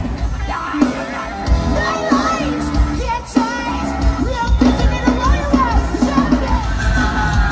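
Live band playing amplified music, a singer over electric guitars and a steady drum beat, with some crowd noise and yells.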